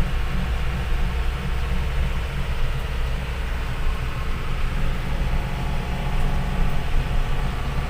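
Isuzu Elf Giga microbus's diesel engine running under way with road noise, heard from inside the cab as a steady low drone.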